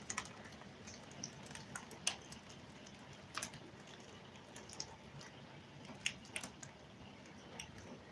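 Heavy rain and hail coming down, a steady hiss with irregular sharp ticks of hailstones striking.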